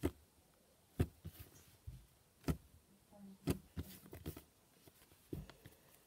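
Clicky slime being pressed and kneaded by hand, giving about eight sharp clicks and pops at irregular intervals, some in quick pairs.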